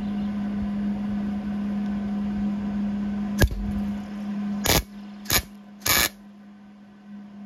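A MIG welder fires four short bursts, each a fraction of a second long, about a second apart, starting a little past halfway, as tack welds are laid on a crankshaft tone ring. Under them a steady electrical hum runs throughout, and the background noise drops off after the second burst.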